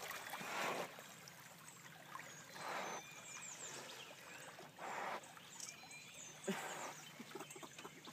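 A swimming wild hog breathing hard, a loud puff of breath about every two seconds: the animal is winded from the swim. Birds chirp in the background.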